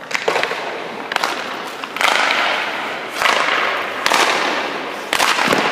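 Ice hockey goalie's skate edges scraping the ice in a series of hard pushes and stops: about six sharp scrapes, several of them trailing off over about a second.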